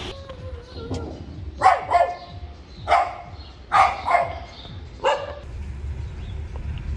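A dog barking, six barks in about three and a half seconds: two quick barks, a single, two quick barks, then a last single.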